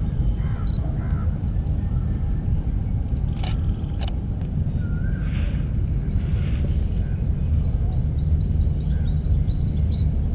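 Birds singing over a steady low outdoor rumble: a rapid run of short rising high notes from about three-quarters of the way in, with a few lower calls earlier. Two sharp clicks about half a second apart come near the middle.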